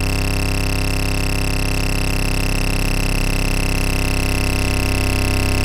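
Oscilloscope music: a synthesized stereo track whose left and right channels trace drawings on an oscilloscope in X-Y mode. It sounds like a steady electronic drone, dense with overtones, with a high tone held on top.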